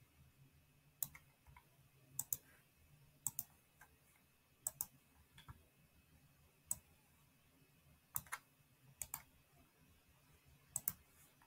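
Computer mouse clicking: about nine groups of short, sharp clicks spread over the seconds, many as quick pairs, over a faint steady hum.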